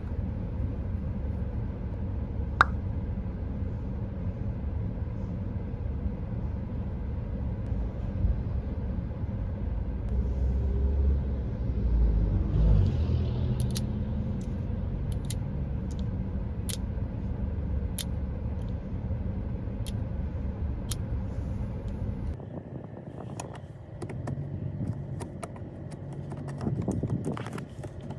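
Road and engine rumble inside a moving car, swelling once about halfway through. A short run of faint, evenly spaced ticks follows. Near the end the deep rumble drops away suddenly, as when the car slows.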